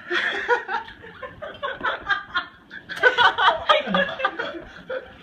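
People laughing in short bursts, loudest about three seconds in.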